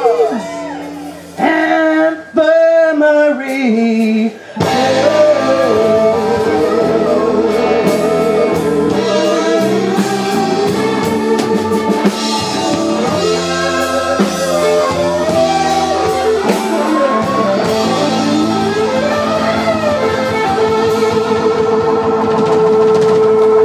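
Live blues band with a woman singing. The first few seconds are quieter sung phrases over sparse backing, then about four seconds in the full band comes back in with drums and electric guitar, and the music ends on a long held note.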